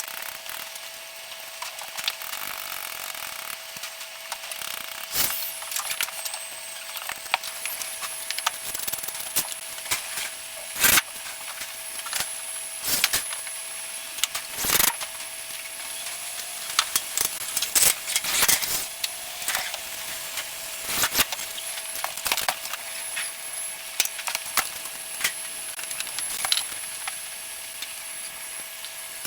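Hand tools working on copper pipe and fittings: scattered sharp clicks and knocks with some scraping. A steady hiss and a constant faint tone run underneath.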